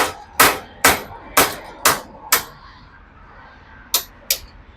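Hammer striking metal on a motorcycle's front end during dismantling for a steering cone-set change: six sharp blows about two a second, a pause, then two more near the end.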